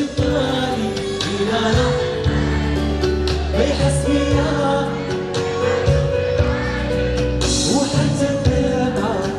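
Live Moroccan pop song: a man singing into a microphone over instrumental music with a steady beat.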